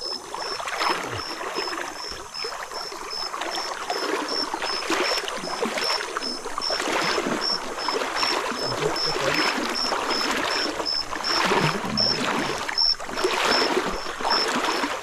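Shallow river water splashing and sloshing in an irregular, continuous stream, starting suddenly.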